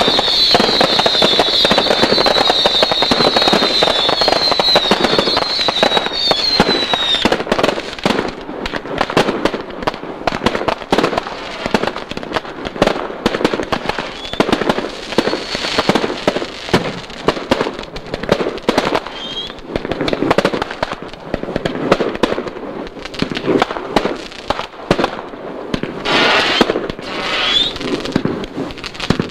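Multi-shot consumer firework cakes going off in a dense barrage of reports with a high wavering whistle over them; about seven seconds in the whistle stops and the shots continue as a steady run of separate cracks and pops.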